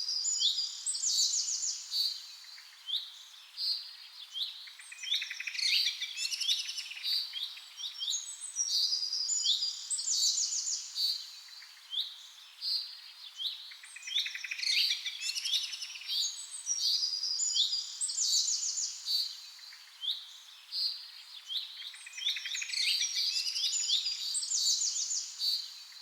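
Songbirds chirping and trilling in quick high-pitched calls, the same run of calls repeating about every eight or nine seconds like a looped recording.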